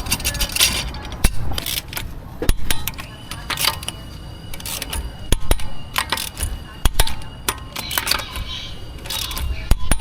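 Irregular sharp clicks and metallic clinks, several a second, with faint talk underneath.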